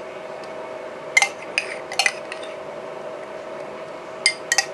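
A metal spoon clinking and scraping against a container and a ceramic plate as potato salad is spooned out: a few sharp clinks, then two more near the end.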